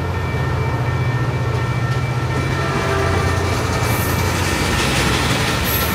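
Caltrain bilevel passenger cars rolling past a level crossing with a steady low rumble of wheels on the rails. Through it the crossing's WCH electronic bells ring on steadily, with the gates down. A higher hiss from the train joins about four seconds in.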